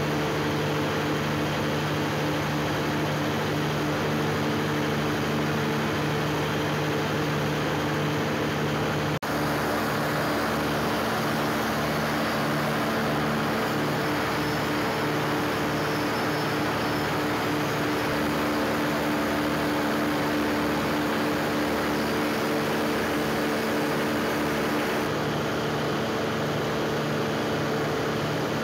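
Perkins generator-set engine of about 1 megawatt running steadily under load at about a quarter of its rating, a loud constant drone with a low steady hum. The sound drops out for an instant about nine seconds in.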